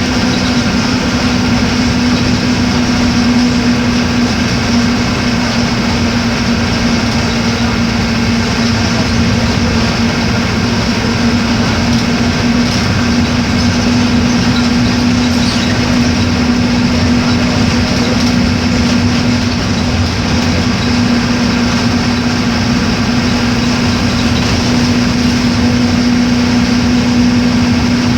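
Mercedes-Benz OF-1418 bus's diesel engine running steadily at an unchanging pitch, with a constant low hum over its noise.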